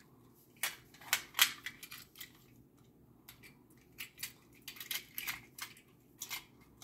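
Two small die-cast metal toy cars clicking and clacking against each other as they are handled: irregular sharp clicks in two runs, one starting about half a second in and another from about four seconds in.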